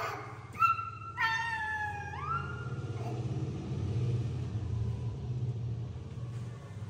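Young macaque monkey giving three high, thin calls in the first three seconds, the last one falling and then sweeping up. A steady low rumble follows.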